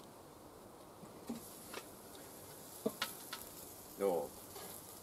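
Sharp metal clicks and clinks as a kettle grill's lid is lifted off and metal tongs work sausages on the grate, over a faint steady sizzle.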